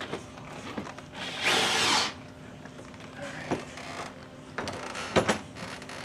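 A short, loud burst of hand-held power-tool noise about a second and a half in, then a few sharp clicks and knocks of tool work as car amplifiers are fitted and wired.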